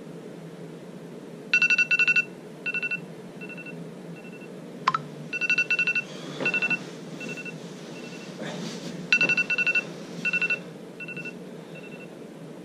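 Electronic alarm beeping in three repeating bursts about four seconds apart, each a quick run of high beeps followed by a few slower, fainter ones. Bedsheets rustle between the bursts as someone stirs in bed.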